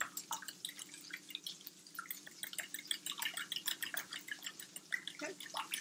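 A fork beating two raw eggs in a ceramic bowl: rapid, irregular light clicks and wet ticks as the fork whisks the liquid egg and taps the bowl.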